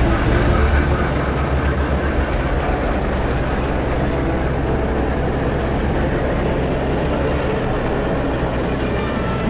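Ride noise of a 15-inch gauge passenger train drawn by a Baldwin 4-4-0 locomotive: a steady rumble of the cars' wheels rolling on the track.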